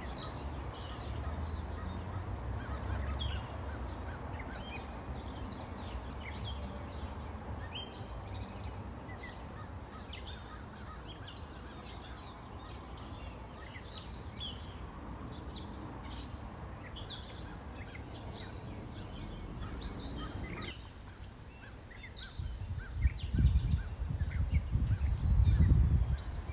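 Many small birds chirping and calling over the steady rush of a river. About three-quarters of the way through, loud low rumbling buffets come in and carry on to the end.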